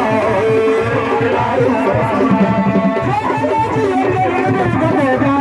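Religious praise music: a sung melody over a steady beat of hand drums, amplified through loudspeakers.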